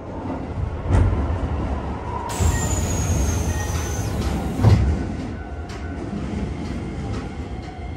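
Keisei Main Line train noise at a station stop: a loud low rumble with a heavy thump about a second in and another just after the middle, and a high squeal that slides down in pitch for about two seconds.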